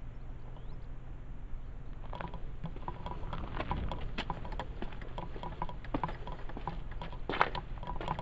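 Footsteps on stone and rough ground: irregular light crunching taps that start about two seconds in, over a low steady background hum.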